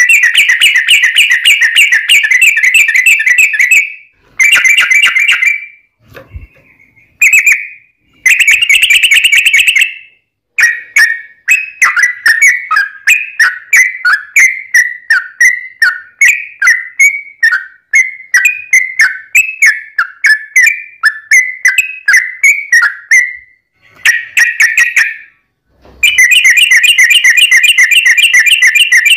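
Yellow-vented bulbul (trucukan) calling loudly in fast rattling trills of rapidly repeated notes, broken by short gaps. Through the middle it switches to a long run of separate quick chattering notes before the dense trills return near the end: the long, aggressive fighting calls used as bait.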